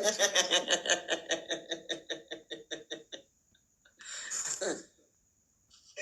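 A person laughing hard in a quick run of 'ha' pulses that fade out over about three seconds, followed by a short breathy sound about four seconds in.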